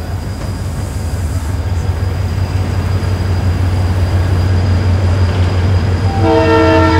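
A passenger train standing at the platform with a steady low hum from its engine. About six seconds in, its horn sounds a long note of several tones together, signalling departure.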